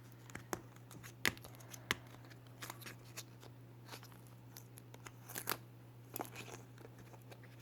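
A surprise egg's wrapping and plastic capsule being torn and pried open by hand: scattered soft clicks, snaps and crinkles of packaging, with a faint steady low hum underneath.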